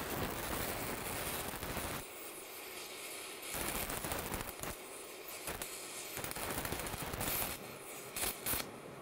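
Multiplaz steam-plasma torch arc crackling as it welds a steel exhaust pipe, dropping back and picking up again several times. At this low setting the arc tends to stall, which the welder points out.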